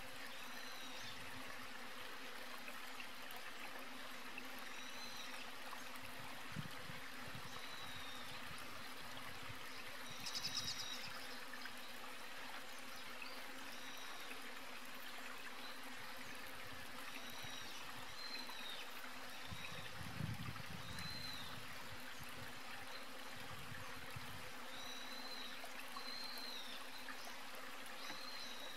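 Outdoor ambience: a steady hiss with a faint hum, over which short high chirps, each a quick rise and fall in pitch, recur every couple of seconds. A brief louder rustle comes about ten seconds in and a low thump about twenty seconds in.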